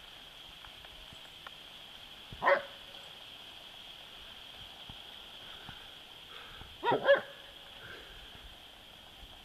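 German shepherd barking: one short bark about two and a half seconds in, then two quick barks close together near seven seconds.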